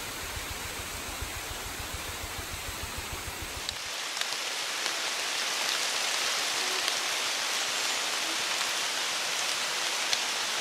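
Steady rain falling on the tree canopy and leaves, an even hiss. A low rumble sits under it for the first few seconds. After about four seconds the hiss turns a little louder and brighter.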